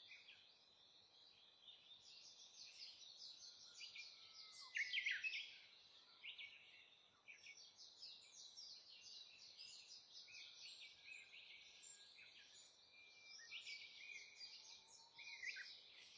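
Warbling white-eyes twittering: a dense run of quick, high chirps, loudest about five seconds in.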